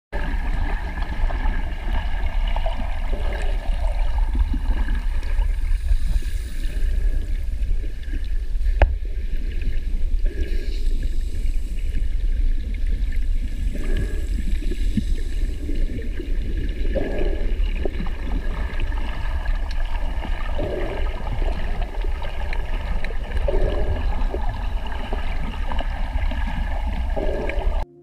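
Underwater ambience from a camera housing: a steady low rumble with water hiss, and one sharp click about nine seconds in.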